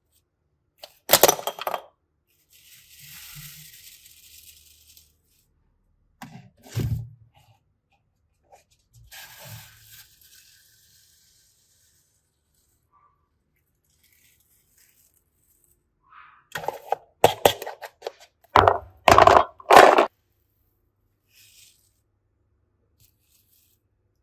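Small objects being handled on a tabletop: a sharp knock, a stretch of rustling, a dull thunk, more rustling, then a quick run of sharp clacks and cracks near the end.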